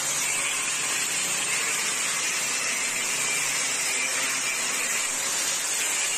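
Steady, even hiss with no rhythm or pitch to it, holding the same level throughout.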